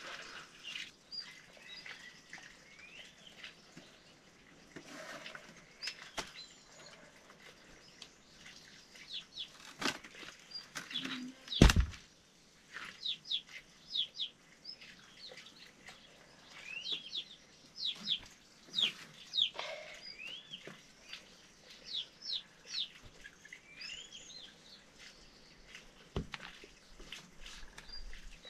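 Small birds chirping in short, repeated high calls, with a few sharp knocks, the loudest about twelve seconds in.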